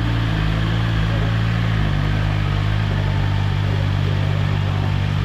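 Superbike engine idling steadily, its note shifting slightly about two seconds in.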